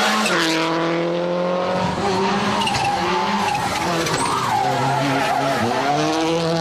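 Subaru Impreza WRC rally car's turbocharged flat-four engine under hard acceleration, pitch climbing and dropping sharply at upshifts, near the start and again about five and a half seconds in.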